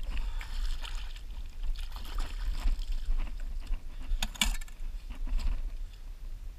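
Outdoor wind rumbling on the microphone, with small wet splashes and handling knocks. About four seconds in comes one sharp clatter as a gloved hand handles clams in a bucket.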